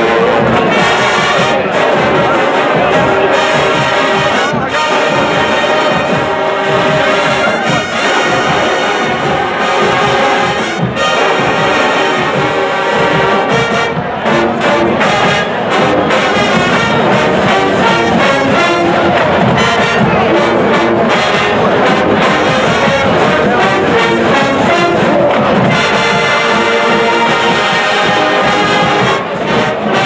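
University marching band playing a brass-heavy tune at full volume, with sousaphones and trumpets, and a steady beat throughout.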